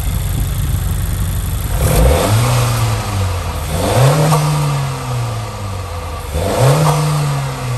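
2022 Honda Civic Si's 1.5-litre turbocharged four-cylinder engine, still on its stock airbox, idling and revved three times. Each rev is a quick rise in pitch followed by a slower fall back to idle.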